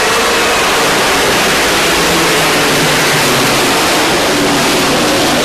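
Dirt-track race truck engines running hard as the pack goes by: a loud, steady drone with engine tones that shift a little in pitch.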